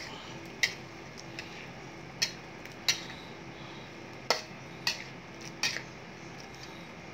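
Metal spatula stirring a saucy tofu and stink-bean mixture in a metal wok, knocking and scraping against the pan with about seven sharp, irregular clinks.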